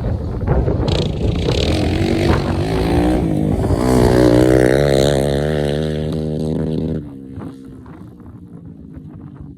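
2006 Polaris Outlaw 500 ATV's single-cylinder four-stroke engine running under throttle, its pitch rising and wavering as it revs, then dropping off sharply about seven seconds in to a much fainter engine sound.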